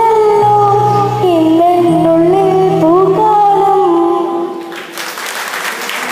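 A girl singing long, held, wavering notes into a microphone over steady accompaniment chords. The song ends about four and a half seconds in, and the audience breaks into applause.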